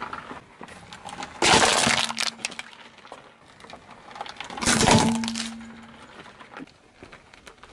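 A car tyre crushing objects on asphalt: two loud cracking crunches, about a second and a half in and again near five seconds. The second is a hard plastic toy fish cracking and shattering under the tyre.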